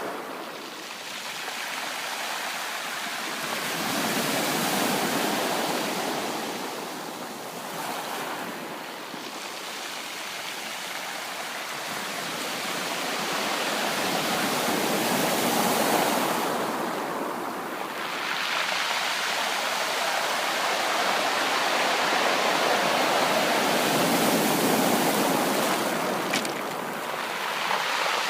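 Sea waves washing onto a shore, the surf swelling and falling back every several seconds, with a long, fuller wash in the second half.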